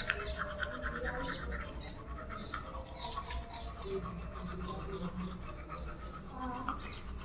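Manual toothbrush scrubbing teeth in rapid back-and-forth strokes, a wet scratchy brushing sound.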